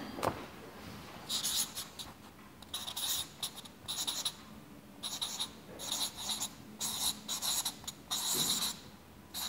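Felt-tip marker writing on flip-chart paper: a series of short, squeaky strokes as a line of words is written out.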